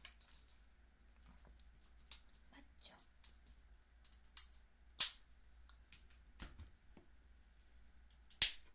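Kitchen scissors cutting through the shell of a steamed snow crab leg, with the shell cracking: a string of sharp, crisp clicks and snaps. The loudest come about five seconds in and near the end.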